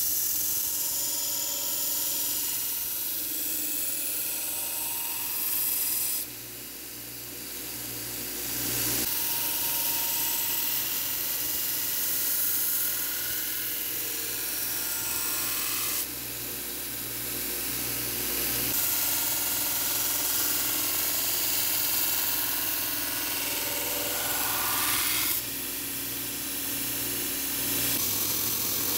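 Bucktool belt grinder running with a steel knife blade pressed against the abrasive belt in a bevel jig, grinding the bevel with a steady rasping hiss over the motor's hum. The sound shifts abruptly in level several times.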